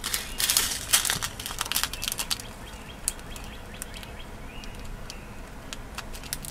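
Small plastic zip bag of tiny Miyuki 15/0 seed beads being handled and turned over: the plastic crinkles and the beads shift and rattle inside. The crackling is busiest in the first second or so, then thins to scattered soft clicks.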